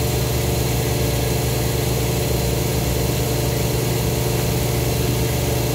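Dental office air compressor running with a steady mechanical hum and hiss, unchanging throughout.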